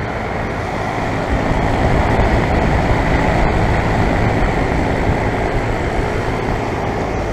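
Outdoor central air conditioner condensing units running: a steady rush of air from the condenser fans over a low compressor hum.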